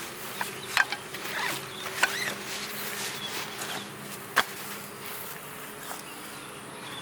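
Insects buzzing over a steady faint low hum, broken by three sharp clicks about a second, two seconds and four and a half seconds in.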